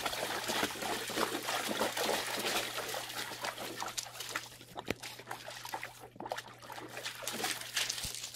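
Water splashing and sloshing in a plastic kiddie pool as a dog stomps and paws in it, the splashing thinning out in the second half.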